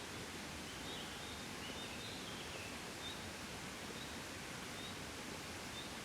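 Gentle, steady wind blowing outdoors, an even hiss with no gusts. Faint short high chirps recur about once a second over it, with a brief wavering call about two seconds in.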